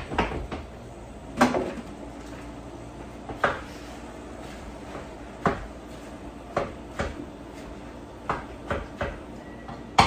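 Irregular hard knocks and clatters, about one every second or two, over a steady low hum.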